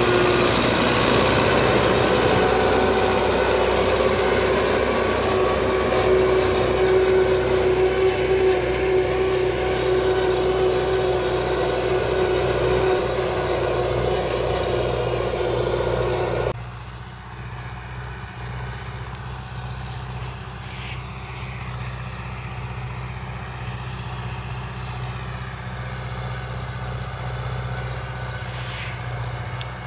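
Belarus 511.1 tractor's diesel engine running steadily under load as it pulls a disc harrow through the soil. About halfway through, the sound drops suddenly to a much fainter, steady low hum from the tractor far off.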